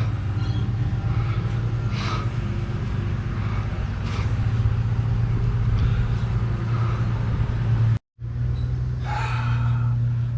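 A steady low mechanical hum with a few light clicks; the sound drops out briefly about eight seconds in.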